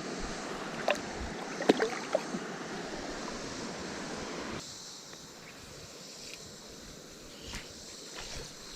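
Steady rush of flowing river water, with a few short, sharp sounds in the first couple of seconds. About halfway through it drops to a quieter rush.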